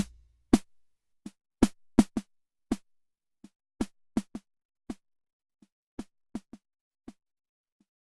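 Korg Drumlogue drum machine playing a sparse, uneven pattern of short clicky hits on one low note, getting quieter toward the end.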